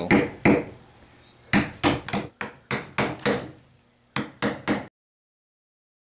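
An uneven series of sharp knocks, about a dozen over five seconds, which then cuts off abruptly.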